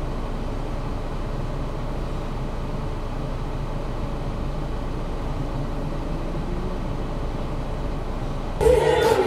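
Steady low rumble of a car heard from inside the cabin, engine and road noise in slow traffic. Near the end it cuts off abruptly into loud music with singing.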